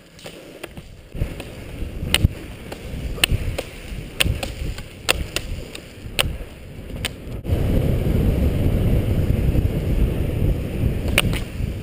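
Roller ski wheels rumbling on asphalt, with ski pole tips clicking on the pavement about once a second. About seven and a half seconds in the rolling rumble grows louder and steadier.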